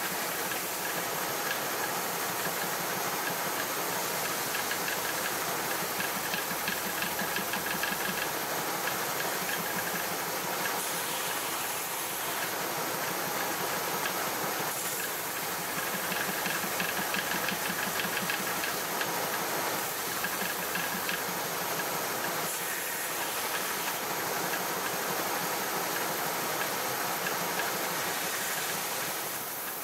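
Stationary woodworking power tool running steadily with a hissing noise as wood is worked on it. The sound changes every few seconds as the workpiece is moved.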